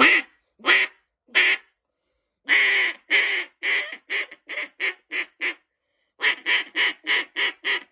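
Haydel's Old Betsy double-reed, Louisiana-style duck call blown in a run of mallard quacks, pretty loud. Three single quacks, then a long drawn quack trailing into a run of shorter, quicker ones, and after a short pause another run of about eight quacks.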